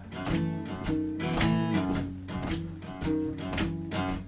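Acoustic guitar strummed in a steady rhythm between sung lines, chords ringing between the strokes.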